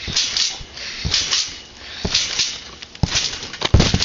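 Trampoline bounces: thuds on the mat roughly once a second, then a louder, heavier thud near the end as a side flip attempt comes down.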